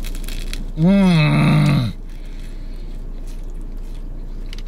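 A crunching bite into a toasted sub roll, then a loud drawn-out "mmm" of enjoyment through a full mouth, rising then falling in pitch for about a second, followed by quiet chewing.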